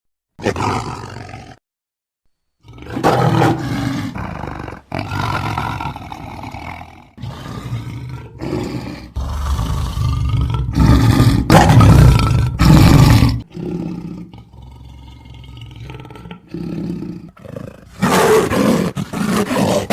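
Designed creature sound effects for Thylacoleo carnifex, the extinct marsupial lion: about a dozen separate roars and growls, each a second or two long with short breaks between them. There is a brief silence near the start, and the loudest roars come in the middle.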